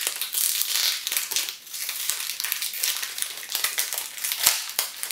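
Crinkling and crackling of a wafer snack's wrapper being worked open by hand, a rapid, irregular run of small crackles.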